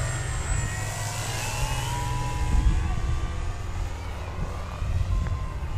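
Hangar-9 Funtana S90 RC aerobatic model airplane's motor and propeller droning in flight, the pitch rising over the first couple of seconds and then holding steady as the plane climbs away. Wind rumbles on the microphone.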